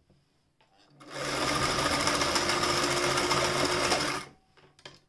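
Singer 467 electric sewing machine running at a steady speed as it stitches through a piece of material. It starts about a second in and stops about three seconds later, followed by a couple of light clicks.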